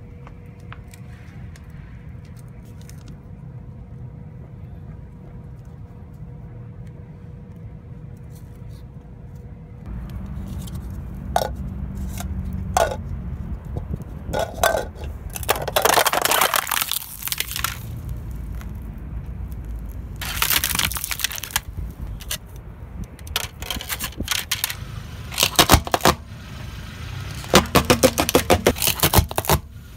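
A car engine runs at a low, steady idle. About a third of the way in the rumble grows louder. Then come several loud crackling crunches of thin plastic cups being crushed under the tyre, and a quick run of sharp cracks near the end.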